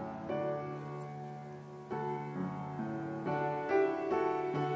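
Instrumental background music: a keyboard melody of separate notes, each starting and fading before the next.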